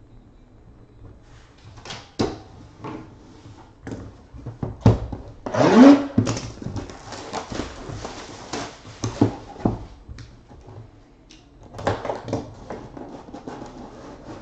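Hands handling and opening cardboard and plastic card packaging: scattered knocks and rustling, with a louder tearing scrape with a rising squeak about six seconds in.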